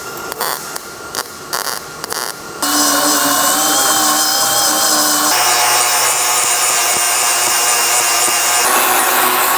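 MIG welder crackling in short, stop-start bursts on the steel door hinge for the first couple of seconds. Then a power tool starts and runs steadily on metal, its pitch shifting twice.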